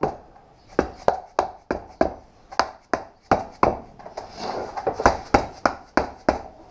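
An irregular series of sharp knocks and clicks, about three a second, as a PCM 40i boat transmission's oil pump is handled and lined up on the case.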